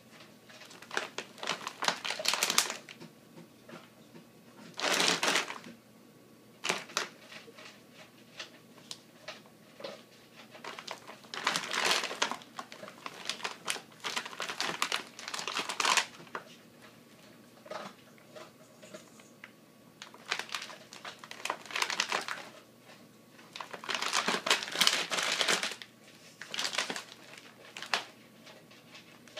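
A large plastic dry cat food bag crinkling in irregular bursts as a cat paws, clutches and rolls on it, with short quiet gaps between the bouts.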